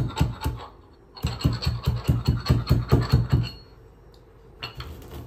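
Dry coriander seeds being pounded coarse with a pestle in a mortar: quick even strokes, about five a second, in two runs with a short break about a second in. The pounding stops about three and a half seconds in, and a few light clicks follow near the end.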